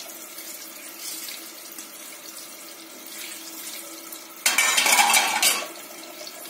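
A kitchen tap runs for about a second, about four and a half seconds in, over a steady low hiss.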